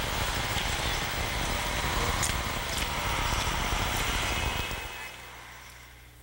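Street traffic noise that fades out about five seconds in, leaving a faint low hum.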